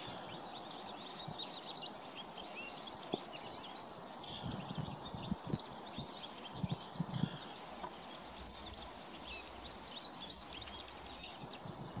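A chorus of small songbirds chirping, a dense unbroken run of short high notes, with a few soft low thumps mixed in.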